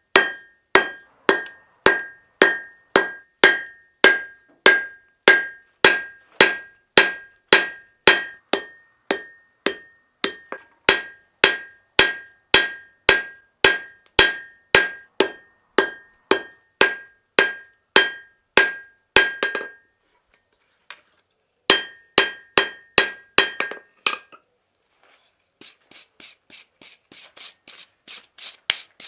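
Hammer blows on steel at an anvil during knife forging, steady at about two a second, each ringing clearly. The blows pause about two-thirds of the way in, a short run of strikes follows, and near the end there is fainter, quicker tapping.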